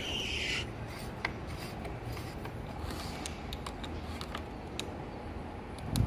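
Small metallic clicks and scraping of a screwdriver working at the bearing and seal of a Ford F-150 electric power steering rack housing, with a high ringing note dying away in the first half second.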